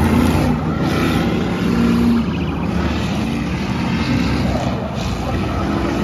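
Several car engines running together as the cars circle a dirt oval track, their pitch rising and falling a little as they pass.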